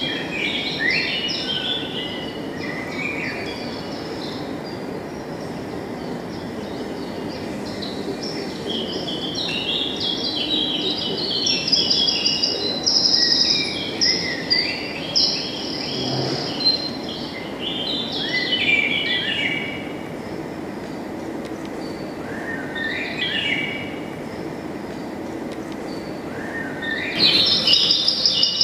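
Birds chirping and singing in short repeated phrases, busiest in the middle and again near the end, over a steady low background noise.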